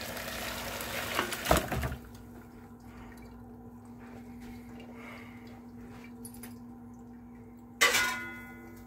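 Hot broth poured from a pot through a plastic colander into a stainless steel sink, a steady splashing pour with a knock near its end, stopping about two seconds in. Near the end a single loud metal clang rings briefly.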